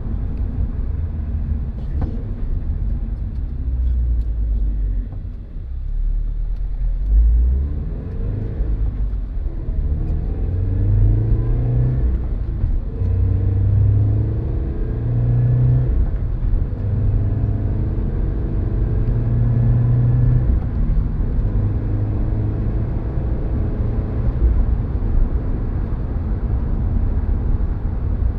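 Subaru FA20 flat-four with unequal-length headers and an Invidia Q300 cat-back exhaust, ticking over low for several seconds, then pulling away with the note climbing and dropping back at each gear change.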